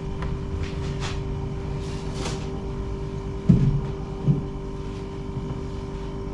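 Steady mechanical hum with a couple of fixed tones, and two soft knocks a little past the middle, under a second apart.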